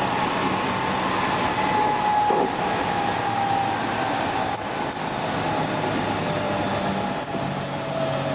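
Running sound of a JR West 207 series 1000 subseries motor car (KuMoHa 207-1037) with a Toshiba GTO inverter: steady wheel-and-rail rumble under a faint motor whine that slowly falls in pitch. The uploader finds this car's inverter modulation sound abnormally odd compared with other cars.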